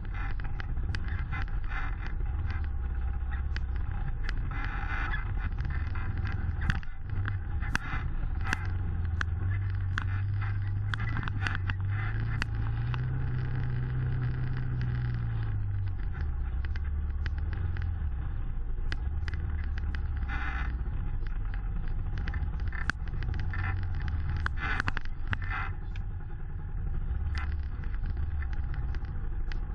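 Side-by-side UTV engine running at low revs while crawling over a rocky trail. Its pitch rises about twelve seconds in and settles back a few seconds later. Frequent sharp knocks and rattles come from the body and from rocks under the tyres.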